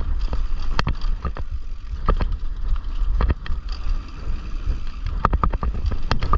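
A loose GoPro camera mount rattling and knocking irregularly over a steady low rumble as a mountain bike rolls down a rough dirt trail.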